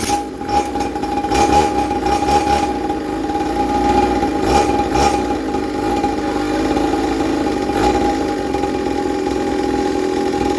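Small 50cc pocket quad engine running steadily.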